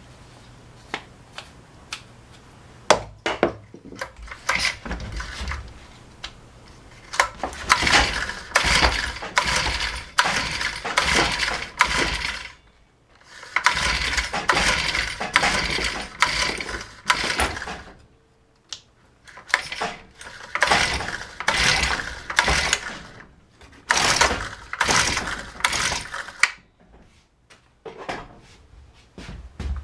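Recoil pull starter of a Honda UMK-422 trimmer's small four-stroke engine, yanked again and again in runs of rapid pulls with short rests between them. The engine cranks but never catches: it won't start.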